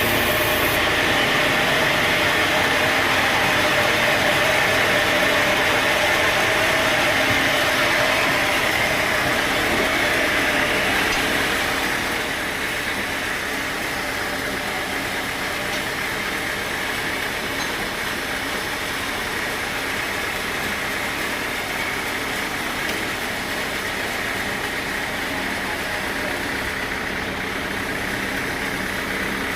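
Sawmill machinery running steadily with an engine-like drone, louder for the first dozen seconds, then settling a little quieter.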